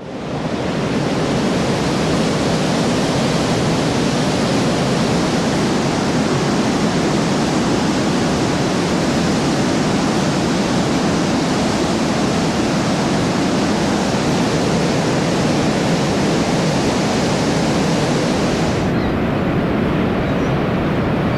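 Thermal waterfall at Saturnia, hot-spring water falling and splashing in a steady, even rush that fades in at the start. The highest hiss drops away about nineteen seconds in.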